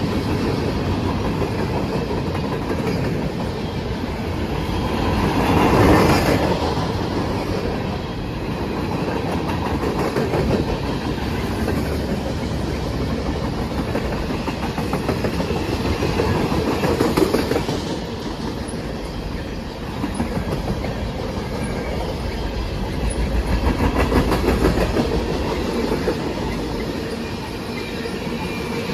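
Freight cars of a manifest train rolling past, among them covered hoppers, a boxcar and tank cars: a steady rumble with wheels clacking over the rail joints, swelling in loudness a few times.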